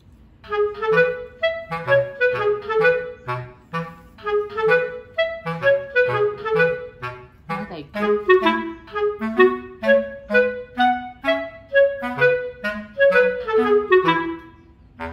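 Background music: a quick melody of short, detached notes over a lower line of bass notes.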